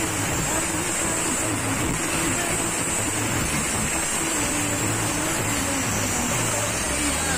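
Loud, steady din of a street procession: sound-system music with a wavering melody line and low bass notes, blurred into a dense wash of crowd noise.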